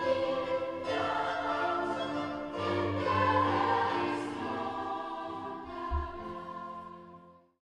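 Children's and youth choir singing in a multi-track video-call recording. The song ends on a held chord that fades out and stops shortly before the end, with a brief low thump about six seconds in.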